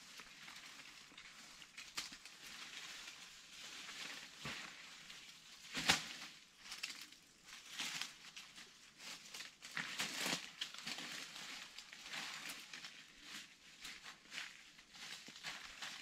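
Irregular rustling and crackling of dry plant material being handled, with many small snaps and a single sharp crack about six seconds in.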